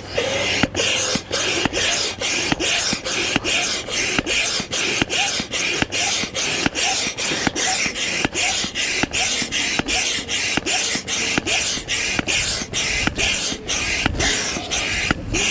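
Manual air pump being worked steadily at about two strokes a second, each stroke a hiss of air, as it inflates the air beam of an inflatable tent.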